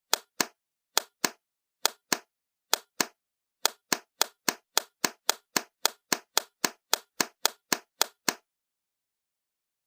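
A single person's hand claps, dry and sharp: four pairs of claps about a second apart, then an even run of about four claps a second that stops abruptly.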